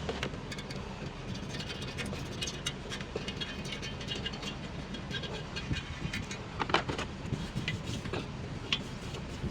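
A steady low mechanical rumble with scattered sharp metallic clicks and clinks, a few louder ones near the end, as of hand tools working on metal parts.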